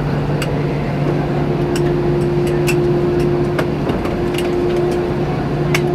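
Cabin noise of an Airbus A319 taxiing after landing: a steady hum with a steady higher tone that comes in about a second in, and scattered light clicks and rattles.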